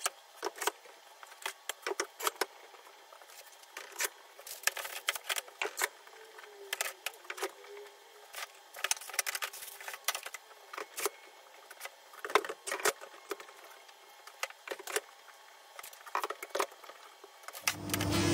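Scattered metallic clicks, knocks and rustling from handling steel parallel clamps and paper on a wooden workbench. A steady machine hum starts up near the end.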